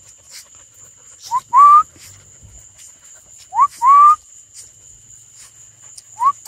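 A person whistling to call dogs: three two-note whistles, each a short rising note followed by a longer, slightly rising one, a little over two seconds apart.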